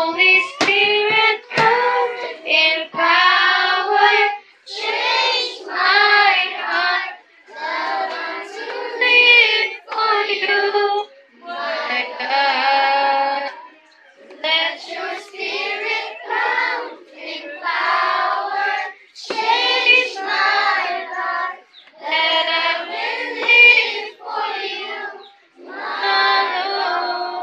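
Children singing a worship song together without accompaniment, in phrases of a second or two with short breaks between them.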